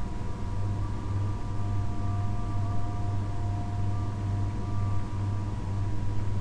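Steady low electrical hum with an even hiss and a faint high steady tone: the background noise of the recording microphone, with no other sound.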